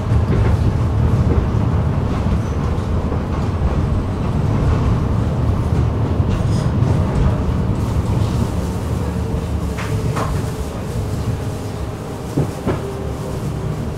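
Electric tram running along the track, heard from inside: a steady rumble of wheels on rails. A faint whine joins about two-thirds of the way through, and a couple of sharp knocks come near the end.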